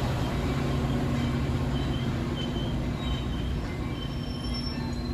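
A train rolling past with a steady low drone and rolling noise, broken by short high-pitched wheel squeals every second or so, slowly easing in level.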